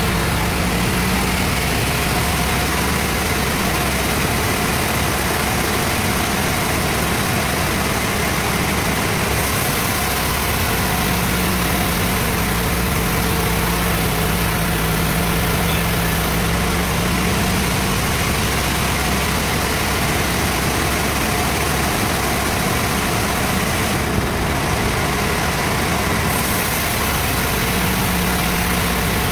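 Sawmill bandsaw machine running steadily with a constant mechanical drone. A low hum within it comes in and drops out a few times.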